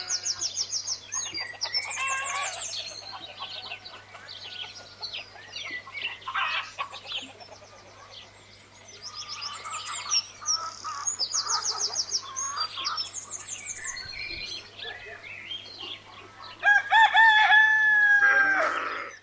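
Farmyard birds: chickens clucking and small birds chirping throughout, with a rooster crowing near the end, the loudest sound.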